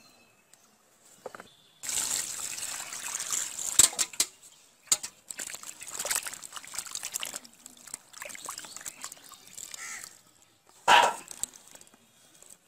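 Hands sloshing and rubbing chunks of peeled bottle gourd in a plastic basin of water, splashing with sharp spikes, starting about two seconds in and stopping about ten seconds in. One short louder sound comes near the end.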